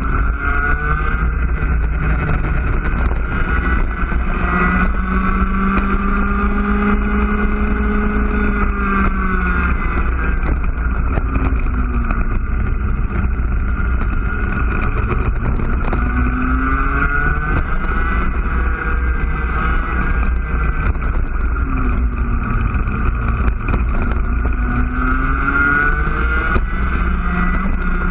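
IAME cadet kart's two-stroke engine heard on board, its pitch climbing as it revs along the straights and falling away as it slows for the corners, several times over.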